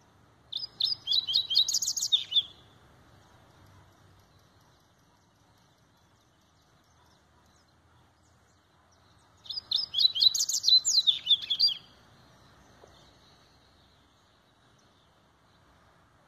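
Double-collared seedeater (coleiro) singing its Laranjeira-type song: two phrases of rapid, high notes, each about two seconds long and ending in a short falling slur, about nine seconds apart.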